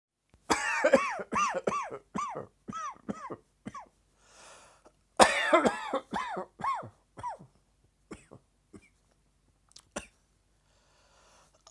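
A person's coughing fit from a tickle in the throat: a run of about nine quick coughs, a short pause, then a second run of about six, followed by a few faint small sounds.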